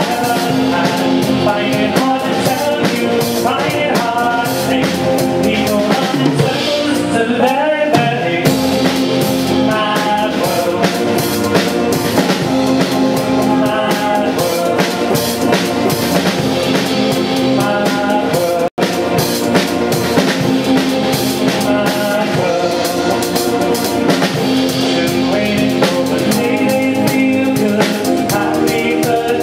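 Live band playing a song: acoustic and electric guitars and a drum kit, with a man singing lead and a woman singing at a second microphone. The sound cuts out for an instant about two-thirds of the way through.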